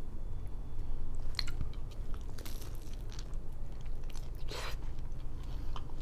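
Close-miked eating: crisp crunching and chewing, with a longer crunchy bite into a battered, sauced fried piece about four and a half seconds in, over a steady low hum.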